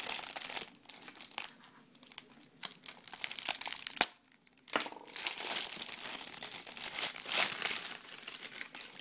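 Plastic packaging bag and paper wrapping crinkling and rustling as they are torn open and handled, in two spells with a quieter gap between. A single sharp click comes about four seconds in.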